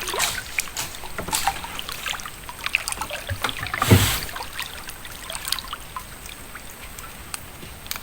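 River water trickling and sloshing, with scattered small splashes and knocks. A heavier splash or thump about four seconds in is the loudest sound.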